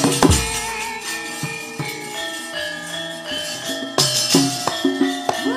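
Javanese gamelan playing shadow-puppet battle music: bronze metallophones and gongs ringing steady tones. Sharp metallic clashes, from the dalang's kecrek plates, cut in just after the start and again about four seconds in.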